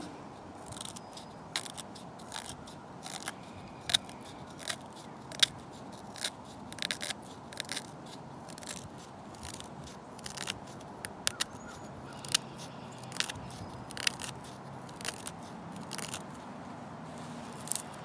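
Leatherman Wave multi-tool's knife blade shaving thin curls off a wooden stick for fine tinder: short, sharp scraping strokes, irregular, about one or two a second.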